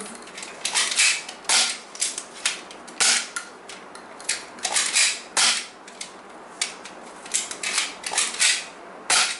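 BoomCo toy dart blasters firing Smart Stick darts again and again: a quick, irregular series of sharp pops and clacks, with darts striking the plastic shield target.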